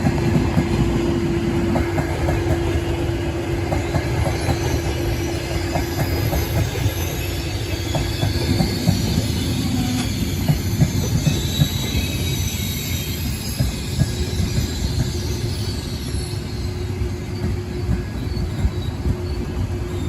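Train running along the track: a steady rumble with a low hum, quick rail clicks, and high-pitched wheel squeal in the middle stretch.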